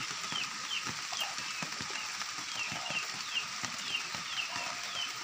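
Steady rain falling on vegetation, with drops tapping close by. A small high chirp, falling in pitch, repeats about twice a second throughout.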